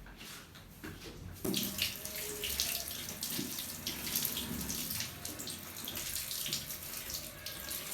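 Water running steadily, as from a tap, starting about a second and a half in.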